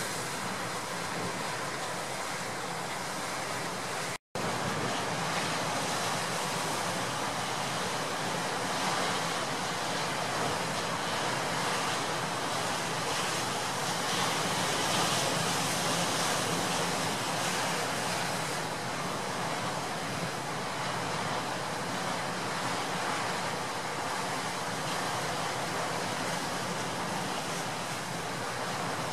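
Storm surf breaking heavily on a rocky shore in strong wind: a steady rush of surf and wind, with wind buffeting the microphone. The sound drops out for a split second about four seconds in.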